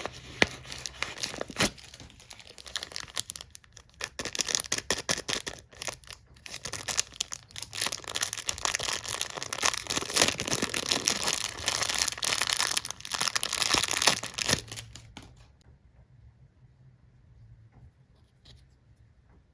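Packaging being torn open and crinkled by hand: dense crackling and tearing with many sharp crinkles, which stops about three-quarters of the way through, leaving quiet.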